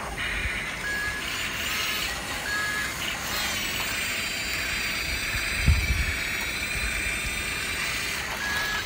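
Small electric motors and gears of toy remote-control vehicles whirring as a toy sports car drives in and a toy excavator swings its arm. Short electronic beeps sound about a second in, again a second and a half later and once near the end, and a single low thump comes a little past halfway.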